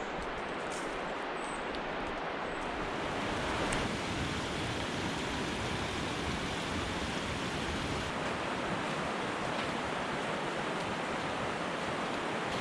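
Steady rushing of a mountain stream, an even wash of water noise with no break.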